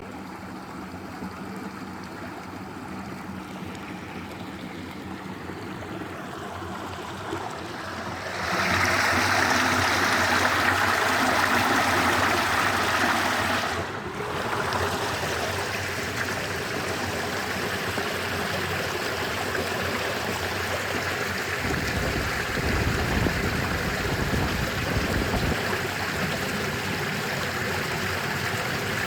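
Stream water flowing and rushing steadily, growing suddenly louder about a third of the way in and changing abruptly about halfway through, with a low rumble for a few seconds later on.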